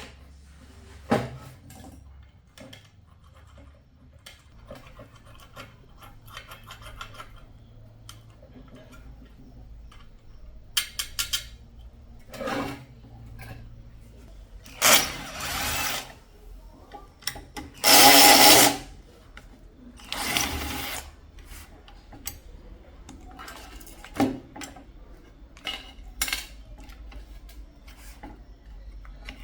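Hand repair work at a bench: scattered clicks and knocks of tools and parts being handled, with a few second-long scraping or rubbing strokes in the middle, the loudest about two-thirds of the way through.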